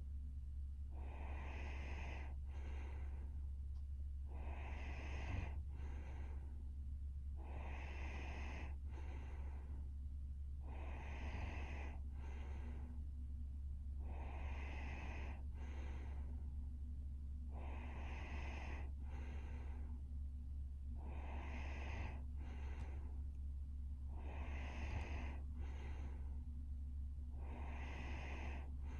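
A sleeping young woman breathing heavily and evenly through her nose and mouth, a long noisy breath then a shorter one, repeating about every three seconds. A steady low hum runs underneath.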